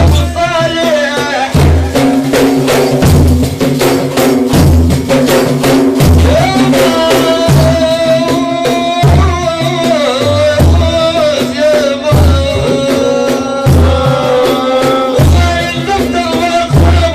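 Sufi dhikr chanting: a lead voice sings a wavering melody with the group, over frame drums beating a deep stroke about every second and a half, with quicker strikes and jingles between.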